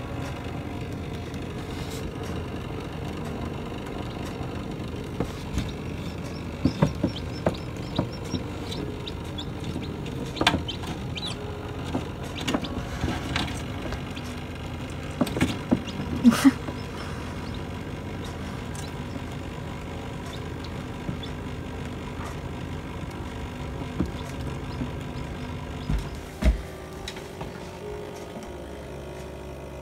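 Steady hum of a small computer fan circulating air inside a still-air egg incubator, with scattered soft taps and knocks, most of them in the first half.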